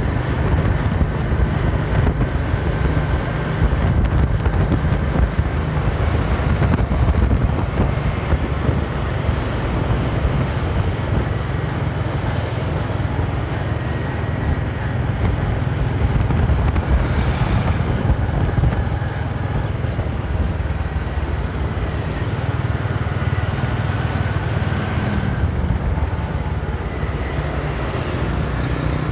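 Steady wind rumble on the microphone of a moving motorcycle, with road and traffic noise underneath.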